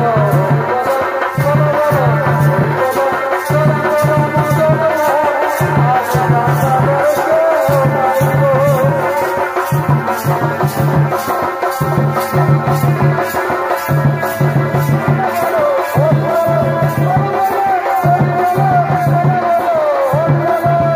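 Chhau dance music: a shehnai plays a wavering, ornamented melody over dhol drums beating a steady, repeating rhythm, with sharp strikes at about three a second.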